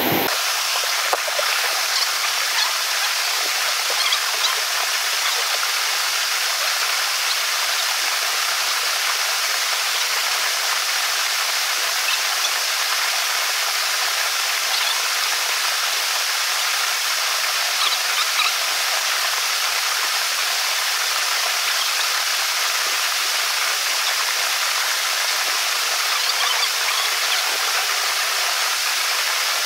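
Waterfall pouring into a rock pool: a steady, even rush of falling water, with a few faint clicks over it.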